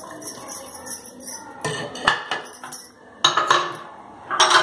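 Crockery clinking and clattering: a ceramic plate tapped and scraped against a plastic mixing bowl and set down among glass bowls on the counter. There are several separate knocks, the loudest two in the second half.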